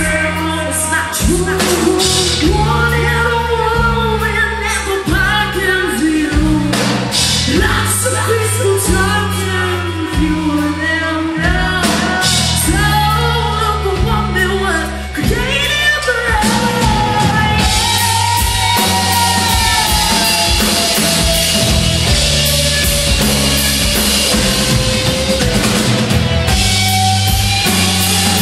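Live rock band playing loudly: a female lead vocal over electric guitar, bass and drum kit. The singing stops about 17 seconds in and the band carries on with a guitar-led instrumental passage and heavier cymbals.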